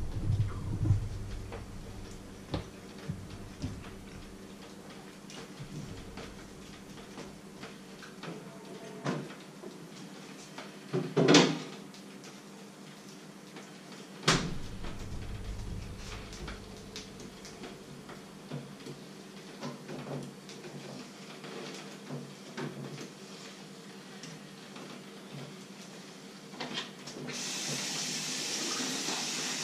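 Scattered knocks and clunks of kitchen handling over a faint steady hum, the loudest about 11 and 14 seconds in. Near the end a kitchen tap starts suddenly and runs steadily into the sink.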